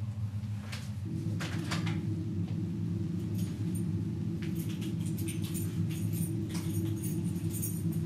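A low steady hum under a run of small clicks and rattles, thickening in the second half, from a door being handled and opened.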